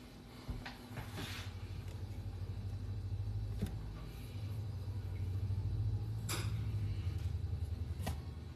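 A low motor rumble with a fluttering pulse starts about half a second in, swells through the middle and fades near the end, with a few light clicks and taps over it.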